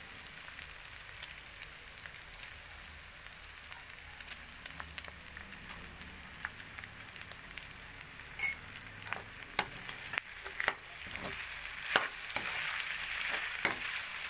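Pork pieces sizzling in hot oil in a metal wok, with a metal spatula scraping and clicking against the pan as the meat is stirred. The clicks come more often in the second half, and the sizzle grows louder near the end.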